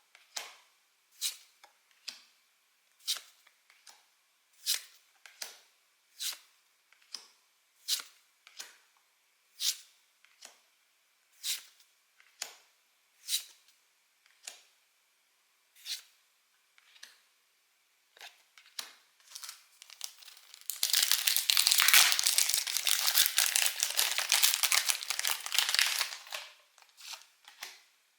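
Pokémon trading cards handled one at a time, a short crisp snap about once a second. About twenty seconds in, a booster pack's wrapper is torn open with loud tearing and crinkling lasting several seconds.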